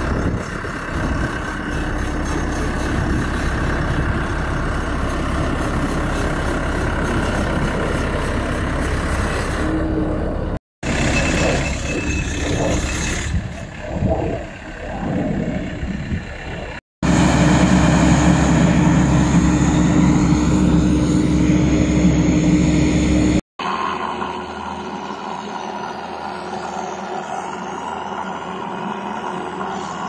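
Diesel engine of a tracked, remote-controlled hydraulic power pack running steadily, broken by three abrupt cuts between clips; it is loudest and most even in the stretch about two-thirds of the way through, and quieter after the last cut.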